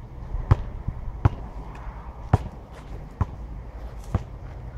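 Basketball dribbled on an asphalt court: about five sharp bounces, unevenly spaced roughly a second apart.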